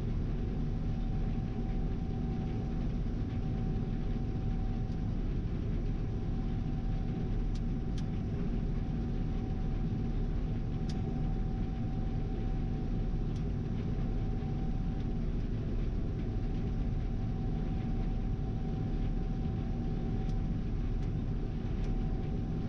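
Gleaner R72 combine running steadily while harvesting soybeans: a constant low drone with a steady whine above it, and a few faint ticks.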